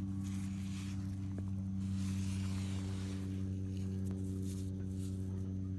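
Fingers scraping and crumbling damp sandy dirt in a riverbank dig, over a steady low hum.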